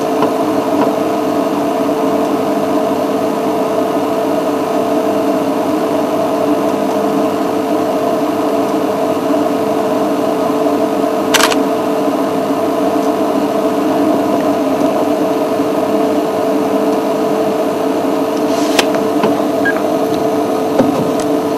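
A steady hum of several fixed tones that does not change, with two short sharp clicks, one about halfway and one near the end.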